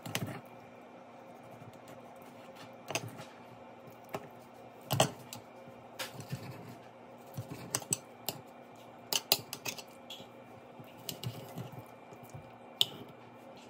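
Kitchen knife slicing raw beef on a plate, the blade clicking and tapping against the plate in short, irregular strikes.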